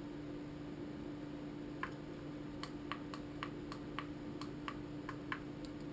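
Push-buttons on an iCharger 106B+ balance charger clicking in a quick run of presses, about four a second, starting about two seconds in, as the charge current is stepped up to its 10-amp maximum. A low steady hum sits underneath.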